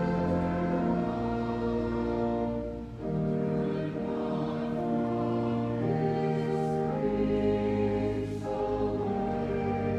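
Slow hymn music in long held chords that change every few seconds, with a short break about three seconds in.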